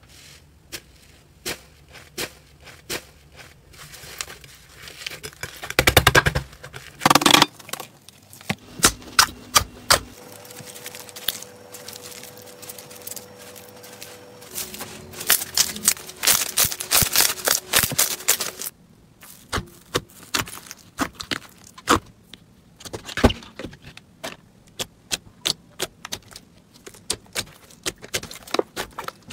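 Hands squeezing, poking and stretching slime, which makes bursts of sharp sticky clicks and pops with quieter stretches between them.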